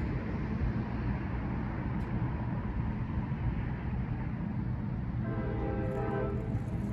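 Horn of an approaching New Jersey Transit North Jersey Coast Line train sounding one long chord about five seconds in, with the next blast starting right at the end. Under it a steady low rumble.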